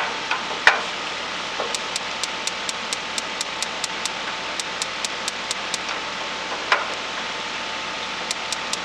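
Battery-powered electronic spark igniter on a gas grill clicking rapidly, about four to five clicks a second for several seconds, then a few more clicks near the end, with two louder knocks in between. The owner thinks the igniter's electrics, still on a three- or four-year-old battery, are going bad.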